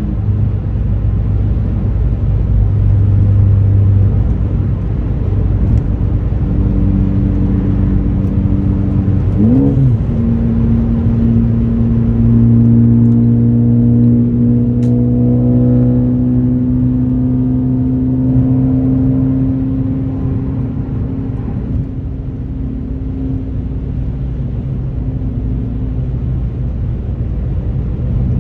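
Ford Focus ST's turbocharged 2.0-litre four-cylinder with an aftermarket axle-back exhaust, running steadily while driving. About ten seconds in, the revs sweep up quickly. The engine then holds a slightly higher note that slowly sinks.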